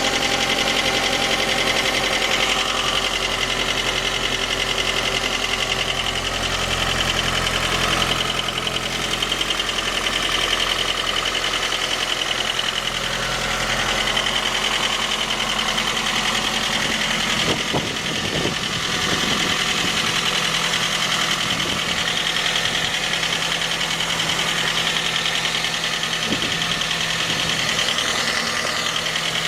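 Suzuki J20A 2.0-litre four-cylinder engine running cold with a light, steady knock. The knock turned out to come from a scored crankshaft journal at cylinder 3.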